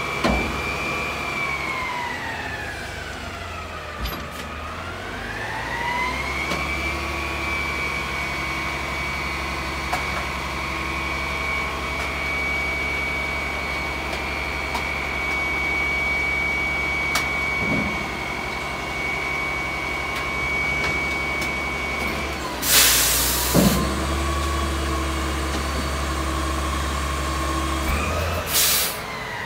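Front-loader garbage truck's engine running with a steady high whine from its hydraulics as the arms bring the carry can down. The whine sinks in pitch and climbs back a few seconds in, then holds. Two short loud air hisses come about 23 s in and again near the end, typical of the air brakes.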